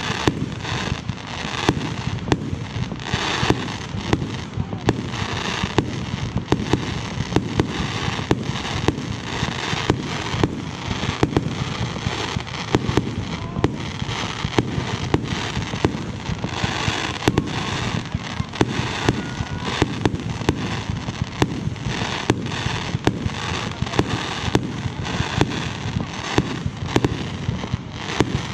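Fireworks display: a steady run of bangs and booms, several a second, over continuous crackling and rumble.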